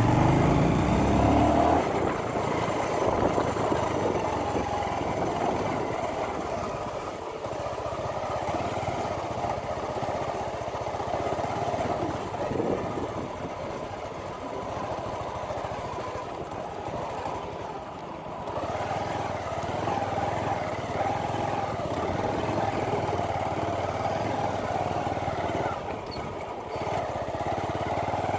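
Vehicle engine running steadily on the move, louder at the start, easing off about two seconds in and picking up again past the midpoint.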